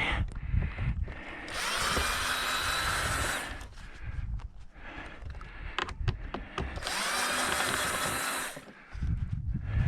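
Power drill run in two bursts of about two seconds each, its motor whine rising as it spins up and then holding steady. Clicks and knocks of parts being handled come between the bursts.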